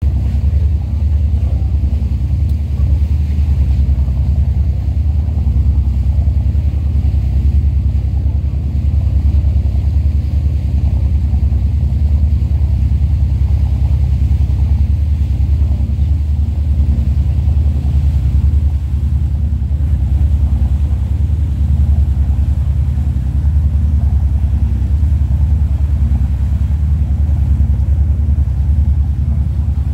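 A tour boat's engine running steadily at cruising speed, heard from on board as a loud, even, low rumble with some water and wind noise over it.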